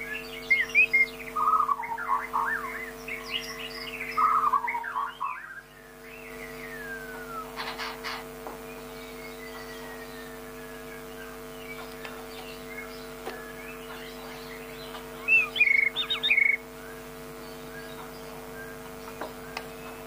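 White-rumped shama (Bornean murai batu) singing: rapid bursts of varied whistles and chirps for the first six seconds, then a long falling whistle, and after a quieter stretch a short loud burst of song about fifteen seconds in.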